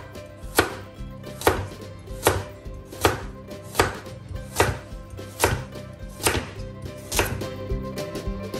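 Chef's knife slicing a carrot on a wooden cutting board: a regular series of sharp chops onto the wood, about one every 0.8 seconds, ten or so in all, dying away near the end.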